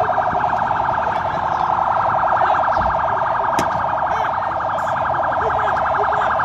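A loud, steady alarm tone pulsing very rapidly at one unchanging pitch, with a single sharp click about three and a half seconds in.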